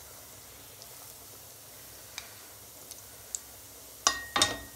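Chhena balls deep-frying in oil in a metal kadai: a steady faint sizzle with a few small pops. Near the end a metal spatula clatters against the kadai twice, the first strike ringing briefly.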